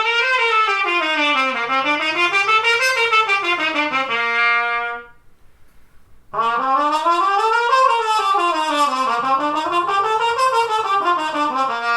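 Trumpet playing the same short phrase twice, each time running up and down twice in quick steps and settling on a held low note, with a short pause between. It is the same phrase repeated to compare the tone of different trumpet mutes; the second take sounds brighter.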